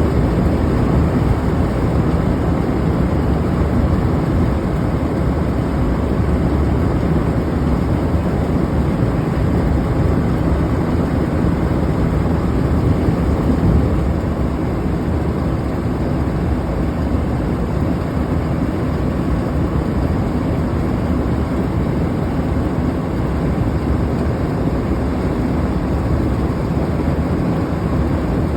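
Belt-driven exhaust fan running with a loud, steady rumbling roar, the noise of its bad bearings; it eases off slightly about halfway through.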